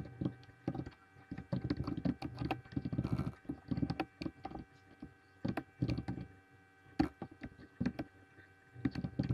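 Computer keyboard typing: rapid, irregular keystroke clicks in short bursts with brief pauses, over a faint steady hum.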